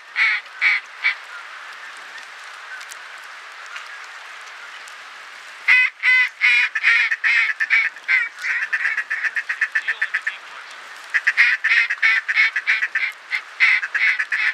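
Duck quacking in rapid runs of loud, sharp calls: a short run in the first second, a pause of several seconds, then runs again from about six seconds in, quickening into a fast chatter near the end.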